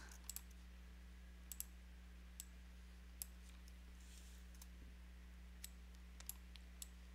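Near silence with about a dozen faint, scattered computer mouse clicks, irregularly spaced, over a low steady electrical hum.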